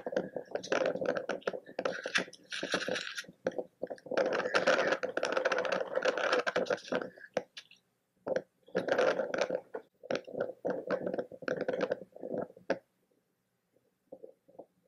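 Wind buffeting the microphone in choppy, irregular gusts, broken by abrupt silent gaps where noise reduction has cut it out, and falling almost silent near the end.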